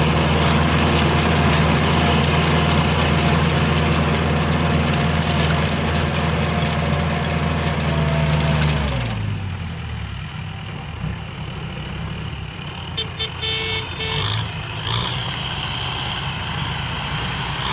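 Kubota diesel tractors running steadily as they pull rotary tillers, a low, even engine note. About halfway through it changes abruptly to a quieter, more distant engine sound with a few short higher tones.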